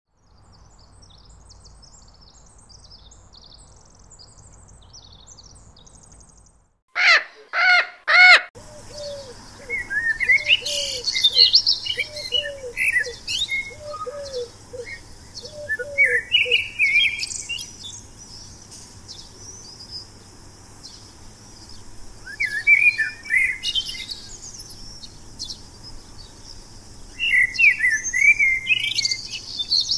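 Forest birds chirping and singing in bouts. Three loud pitched calls about seven to eight seconds in are the loudest events, followed by a run of short low hooting notes repeating for several seconds under the song.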